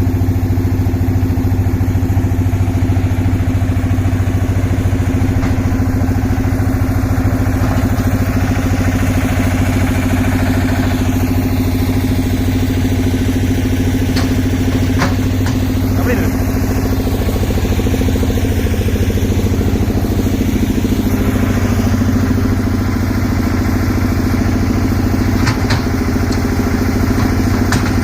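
Concrete mixer's engine running steadily with a loud, even hum, with a few faint clicks about halfway through and again near the end.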